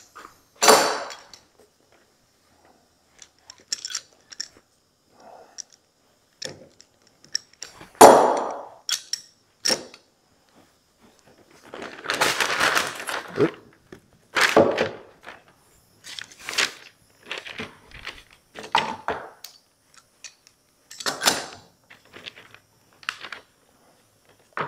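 Metal F-style bar clamps being handled and fitted onto a glued wooden joint: a series of separate knocks and clatters, the loudest about eight seconds in, with a longer scraping stretch of the clamp being slid and tightened around twelve seconds in.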